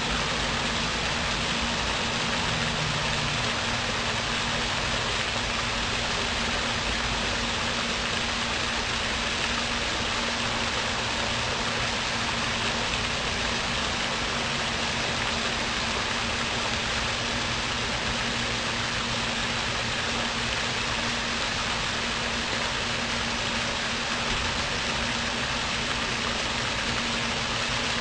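Steady hiss with a constant low hum underneath, unchanging in level throughout.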